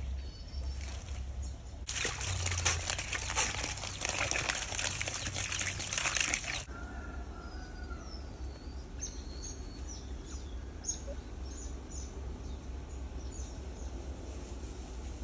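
Dense rustling and crackling for about five seconds as an otter pushes into a nylon-mesh fishing basket, cutting off abruptly. Then a quieter stretch with faint, short, high bird chirps.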